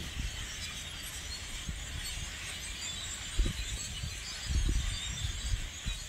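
A huge flock of blackbirds calling all at once: a dense, continuous squeaky chatter. A few low bumps on the microphone come in about halfway through and again near the five-second mark.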